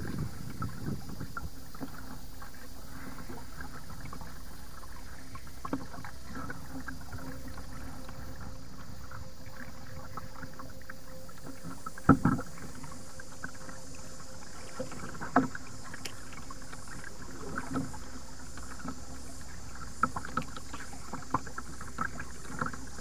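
A kayak being paddled on calm water: paddle strokes with dripping and light splashing. There are a few sharp knocks, the loudest about halfway through and several more near the end.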